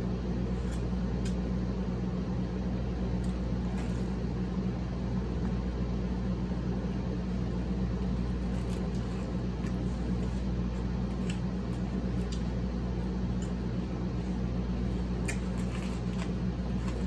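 A person eating, with scattered small clicks of utensils and mouth sounds of chewing, over a steady low hum.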